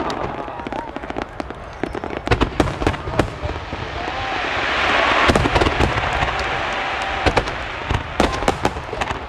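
Aerial fireworks bursting: a dense run of sharp cracks and bangs, with a hissing swell building about four seconds in and the loudest bangs following just after it.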